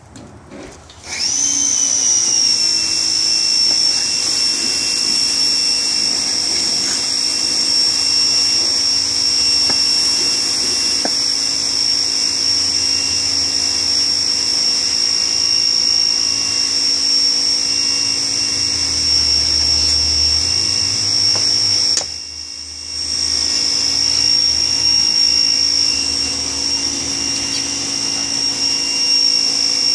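A machine motor starts up about a second in and runs steadily with a high-pitched whine over a lower hum. It drops away briefly about two-thirds of the way through, then comes back.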